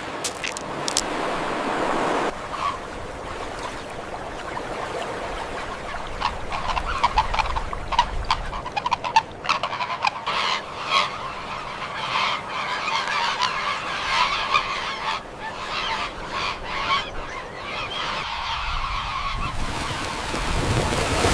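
A flock of birds calling at once, with many short calls overlapping throughout.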